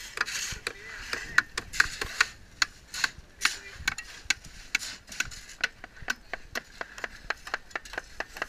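Hand tools tapping and knocking at building work: quick, irregular sharp clicks, several a second.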